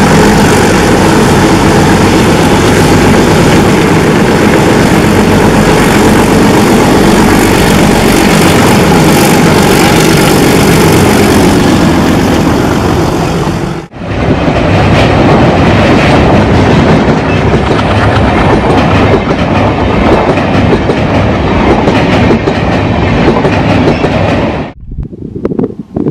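Twin ALCO WDM-3D diesel locomotives chugging loudly under load, mixed with the clatter of the train's wheels on the rails. The sound cuts off abruptly about halfway through, a second loud stretch of train noise follows at once, and it drops away shortly before the end.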